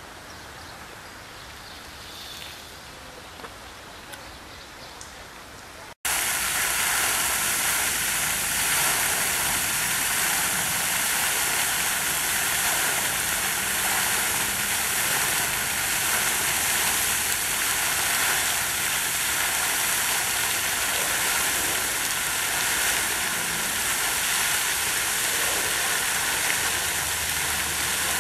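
Single vertical fountain jet spraying up and splashing back into a pond: a loud, steady rush of falling water that cuts in abruptly about six seconds in, after a low outdoor hush.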